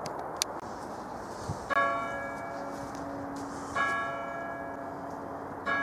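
Church tower clock bell striking, three evenly spaced strokes about two seconds apart. Each stroke rings on and fades away, and the last is still ringing at the end.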